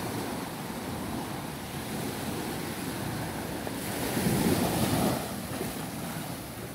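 Small waves breaking and washing up on a sandy beach, one wave coming in louder about four seconds in, with wind rumbling on the microphone.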